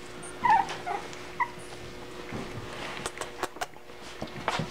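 Lhasa Apso puppies, about eight weeks old, giving a few short high whimpers in the first second and a half. Several sharp clicks follow near the end.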